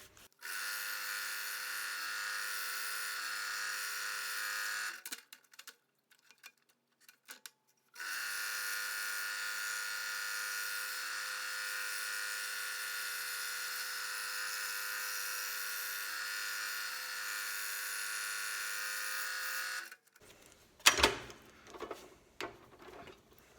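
Scroll saw running steadily as it cuts 1/8-inch Baltic birch plywood; it stops about five seconds in, starts again about three seconds later and runs until near the end. A few sharp clicks and knocks follow.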